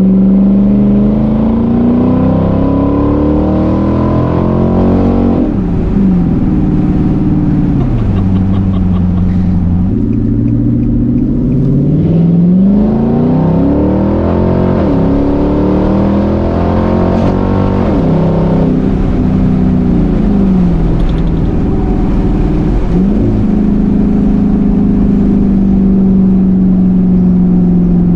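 Nissan Patrol Y62's V8 engine running with its exhaust system removed: really loud. It is revved up and let back down several times, then held at a steady raised speed near the end.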